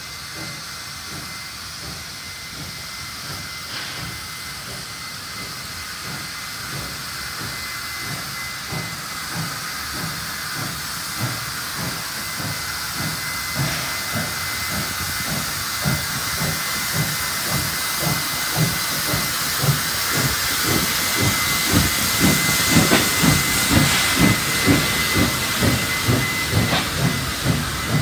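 Baldwin 59 class steam locomotive 5917 drifting slowly toward and past the listener, hissing steam with a thin steady high note. Low rhythmic beats come a few times a second and grow louder as the engine and tender draw level.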